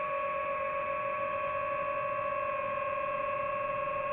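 Steady, high hum of a quadcopter drone's motors and propellers while it flies, several held tones with no change in pitch.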